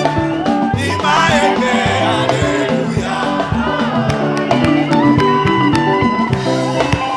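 Live church praise band playing an upbeat worship song, with guitar, drums and hand percussion, and voices singing in French.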